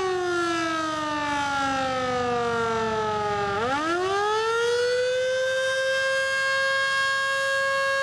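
Federal Signal Model 2 electromechanical warning siren sounding the attack signal, a rising and falling wail. Its pitch slides slowly down for about three and a half seconds, then climbs back quickly and holds steady at the top.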